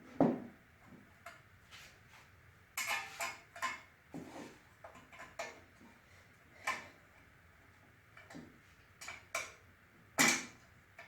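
Metal hand tool clinking and clanking on metal parts while bolts on a Shopsmith are tightened. There are about a dozen irregular, sharp strikes, some with a short ring; the loudest comes just after the start and another near the end.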